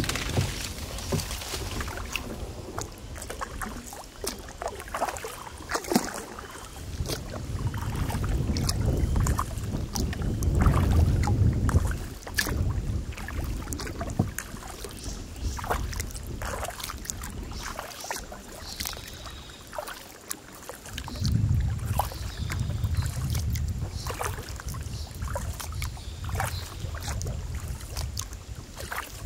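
Kayak being paddled on calm water: paddle strokes with small splashes and drips, heard as a run of short sharp ticks. Two long stretches of low wind rumble on the microphone come and go.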